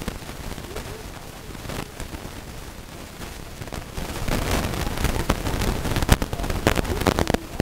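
A few sharp cracks over a low, rumbling background noise. The loudest crack comes about six seconds in, and a quick cluster follows near the end.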